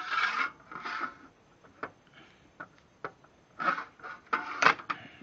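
A 4-foot level being shifted against a miter saw's metal table and fence: several short scrapes with sharp knocks and taps between them.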